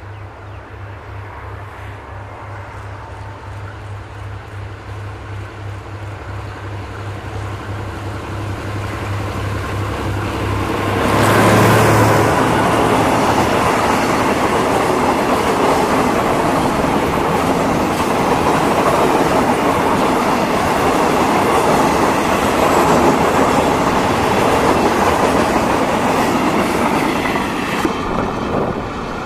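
GEK-class diesel-electric locomotive hauling a freight train of steel boxcars: a steady low engine hum grows louder as it approaches and passes about eleven seconds in. After that the boxcars roll by with a dense rumble and wheels clacking over the rail joints, easing off near the end as the last car passes.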